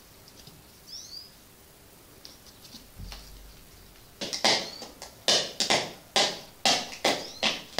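A cat scratching and rustling in a cardboard box, a run of loud scratchy strokes about two a second starting about four seconds in.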